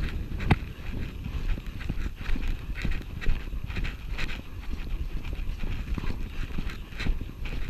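Hoofbeats of a ridden horse moving fast over grass, heard from the saddle as irregular thuds several times a second, over a steady rumble of wind on the microphone.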